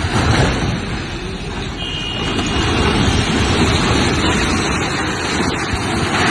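A multi-storey concrete building collapsing: a loud, continuous rumble of falling masonry and debris that swells from about two seconds in. A horn sounds briefly around two seconds in.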